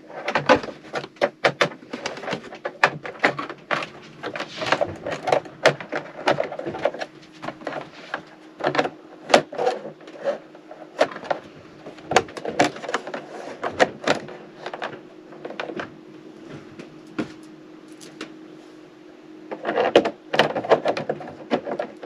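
Plastic clicks, knocks and rattles of an RV air conditioner's ceiling return-air grille and filter being handled and snapped back into the shroud, irregular throughout, over a steady low hum.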